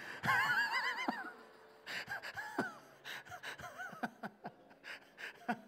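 Congregation laughing at a joke. It is loudest in the first second and trails off into scattered quieter chuckles.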